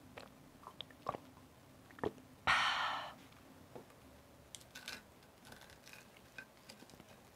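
Small mouth clicks after a swallow of rice wine, then a short, loud rush of breathy noise about two and a half seconds in. From about halfway, wooden chopsticks scrape on a ceramic plate and tear a crisp, pan-fried chive pancake (buchujeon), giving light clicks and crackles.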